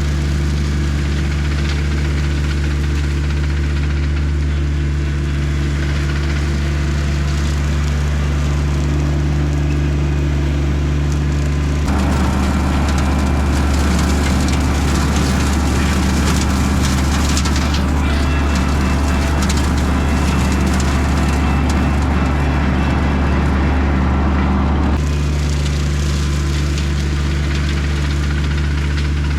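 Tractor engine running steadily with a brush hog mower. From about 12 to 25 seconds in, the sound turns rougher, noisier and a little louder, then settles back to the steady run.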